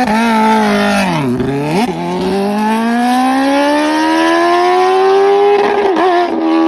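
Motorcycle engine revving: the pitch sags about a second in, then climbs steadily over several seconds as the revs rise, and levels off near the end.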